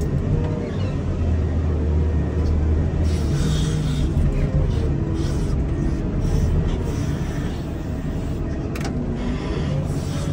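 Komatsu wheel loader's diesel engine running steadily under load with a low rumble, and a higher hiss that swells and fades in the middle.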